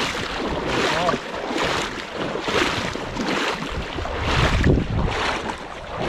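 Legs in waders pushing through shallow river water, a slosh with each stride a little more than once a second. Wind rumbles on the microphone near the end.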